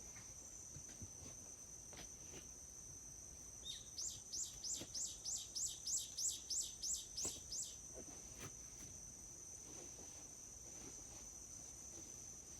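Forest insects holding a steady high-pitched drone, while a bird sings a run of about a dozen quick, sweeping notes, about three a second, for around four seconds in the middle.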